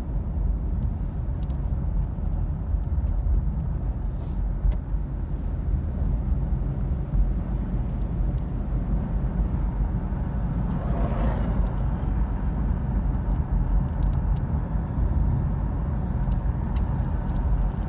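Car driving on a snow-covered road, heard from inside the cabin: a steady low rumble of engine and tyres, with a brief swell of hiss about eleven seconds in.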